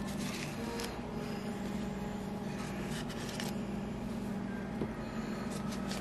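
Paper wrapper of a stick of butter rustling in short bursts as it is peeled off by hand, over a steady low hum.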